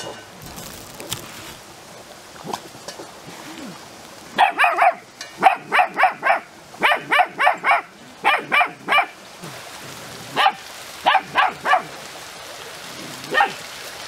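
A small dog yapping, with high, sharp barks in quick runs of three or four that start about four seconds in and keep coming back.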